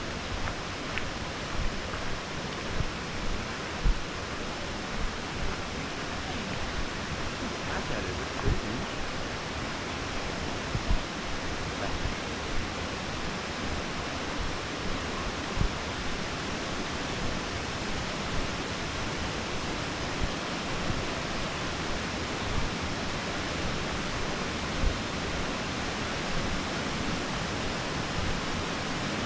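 Steady rushing hiss of Taughannock Creek running low and shallow over its shale bed and a low weir, with occasional low thumps.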